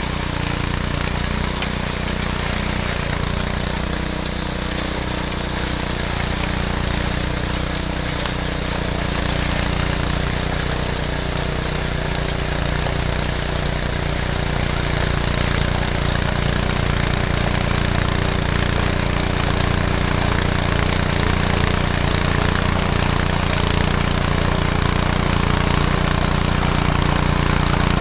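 Snowblower engine running steadily, a continuous even drone with no change in pace.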